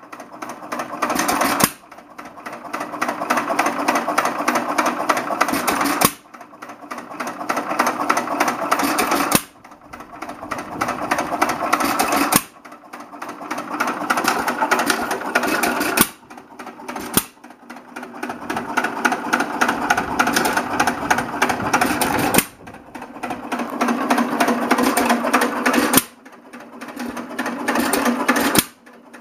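Recently rebuilt Galloway 2 1/4 hp single-cylinder hit-and-miss engine running on its own. It fires with a sharp bang every few seconds, then coasts between firings with a fast, steady mechanical clatter.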